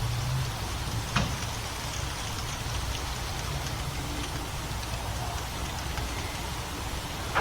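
Motor oil pouring from a quart bottle through a funnel into the engine, a steady splashing hiss with a couple of light clicks from the bottle and funnel.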